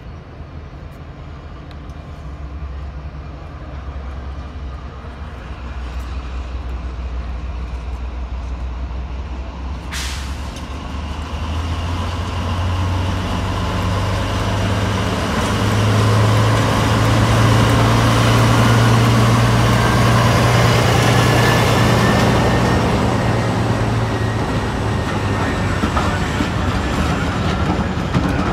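Diesel locomotive engine working under power. Its low, steady note steps up in pitch and grows louder around the middle, then eases off near the end.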